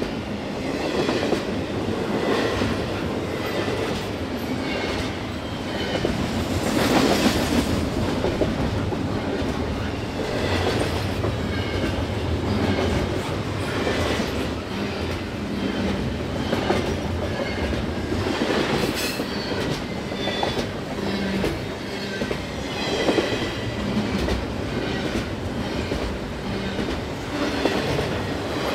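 Train cars rolling past at track speed. The wheels clatter over the rail joints in a steady, repeating rhythm, with a high squeal from the wheels at times.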